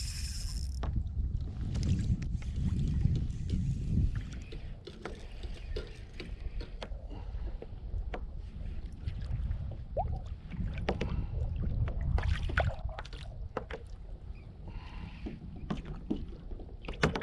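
Water sloshing against a fishing kayak's hull under a steady low rumble, with scattered small knocks and clicks of gear against the kayak.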